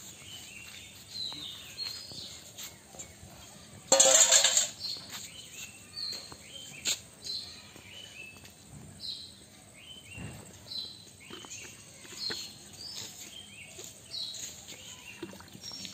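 Birds chirping over outdoor ambience, short high downward calls repeating about once a second. About four seconds in, a brief loud rush of noise stands out above them.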